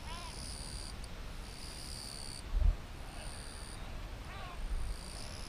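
A frog's distress cry: short, high, wavering screams, one at the start and a fainter one about four and a half seconds in, from a frog seized by a grass snake. Insects buzz in on-off spells throughout, and a low thump sounds about two and a half seconds in.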